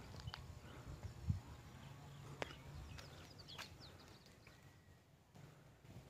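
Faint outdoor ambience: a low rumble, a few sharp clicks, and short bird chirps about three to four seconds in.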